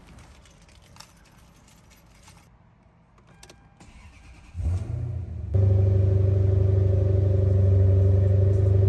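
Key clicks and rattles, then at about four and a half seconds the starter cranks briefly and the Toyota Celsior's 4.3-litre V8 catches, on a battery that has been getting weak. About a second later the engine settles into a loud, steady low exhaust drone at idle.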